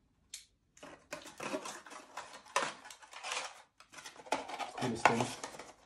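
Cardboard and paper firework packaging being handled and turned over in the hands: an irregular run of rustling, scraping and light knocks that starts about a second in.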